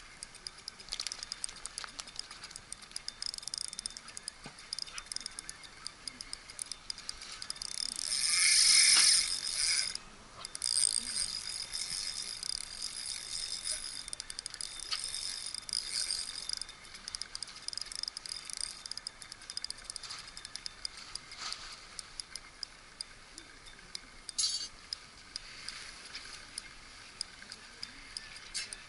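Fishing reel being cranked, a fast mechanical clicking and rattling with a high whir, louder and steadier for a couple of seconds about eight seconds in.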